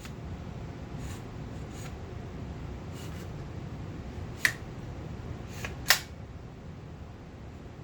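A few sharp metallic clicks from a pistol-caliber carbine's action and magazine being handled, with two louder clacks about four and a half and six seconds in.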